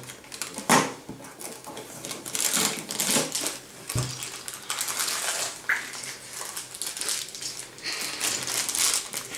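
Cardboard door of a Playmobil advent calendar being pried open and its contents handled: rustling, with a few sharp clicks and small rattles.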